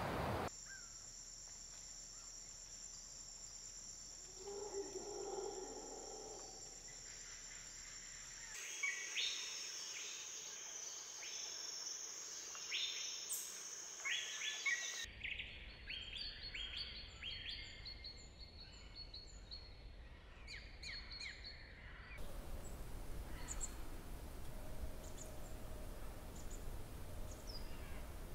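Quiet outdoor nature ambience: a steady high insect buzz through the first half, with many short bird chirps and calls from about a third of the way in. The background changes abruptly several times.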